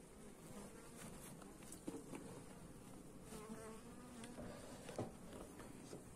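Honeybees buzzing faintly over an opened hive full of frames, a steady hum with two small ticks about two and five seconds in.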